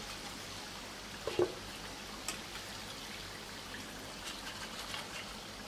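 Semolina-and-potato chops deep-frying in a pan of hot oil, a steady sizzle, as they are lifted out with a wire-mesh skimmer. A few light knocks of the skimmer stand out; the loudest is about a second and a half in.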